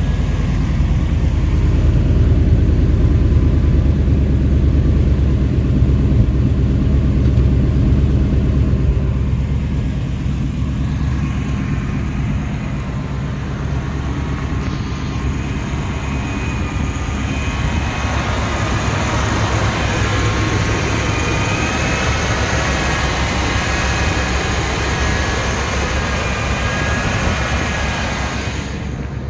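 Chevy 350 TBI small-block V8 idling steadily on fresh spark plugs, wires, distributor cap and rotor, running pretty smooth. A faint higher whine joins about halfway through.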